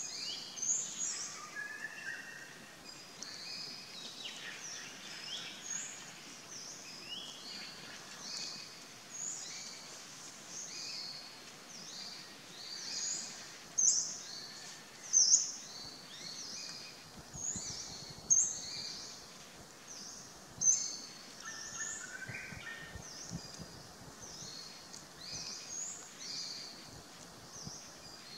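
Forest birds calling: a steady run of short, high chirps, one or two a second, with a few louder notes around the middle.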